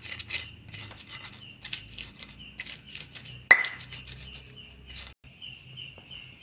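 Stone pestle (ulekan) crushing shallots, garlic and chillies against a stone mortar (cobek): a run of small clicks and scrapes, with one sharper, ringing knock about three and a half seconds in. The grinding stops about five seconds in.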